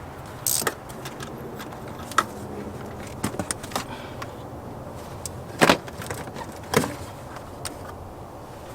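Plastic engine-bay parts being worked loose and handled: an intake tube and engine cover tugged off, giving a series of irregular clicks and knocks, the two loudest a little past halfway through and about a second later.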